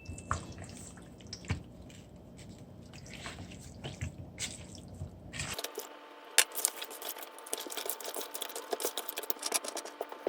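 Faint wet squishing and small clicks as seasoning goes onto rinsed raw chicken thighs and they are handled. About halfway the low hum drops away and a denser run of small crackling clicks takes over.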